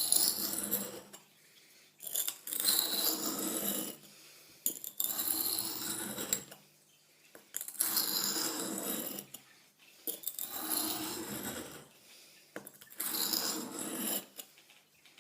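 Buck hunting knife blade drawn along a lubricated two-sided sharpening stone, a rasping scrape with each stroke. About six strokes of one to two seconds each, with short pauses between.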